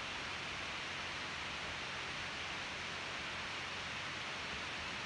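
Steady, even hiss of background noise with a faint low hum underneath, and no distinct events.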